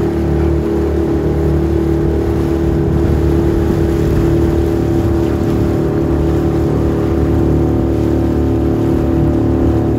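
Boat's outboard motor running steadily at an even pitch, heard from aboard, over a hiss of water and wind.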